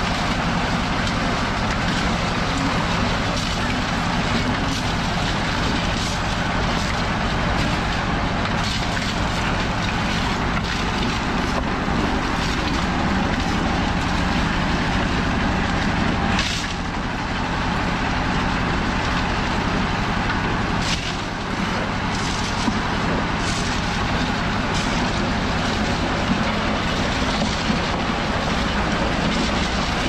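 Drum concrete mixer running steadily, its drum churning gravel, sand and cement into concrete, with scattered sharp knocks and clatters of stones and tools.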